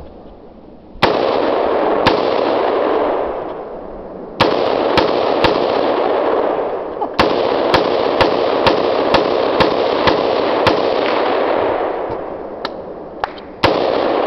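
AR-15-style semi-automatic rifle fired about sixteen times, each shot trailed by a long rolling echo: two single shots, then three quick ones, then a string of about eight at roughly two shots a second, and three more near the end.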